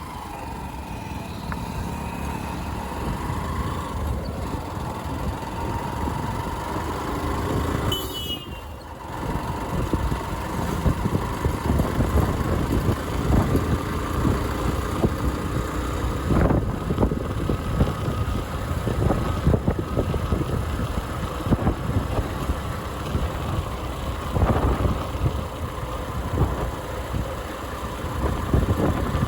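Motorcycle engine running steadily while being ridden over a rough road, with frequent short knocks from the bumps. The sound dips briefly about eight seconds in, then picks up again.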